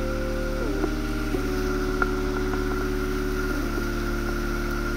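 Background music: sustained synth chords that change a few times, over a steady low hum.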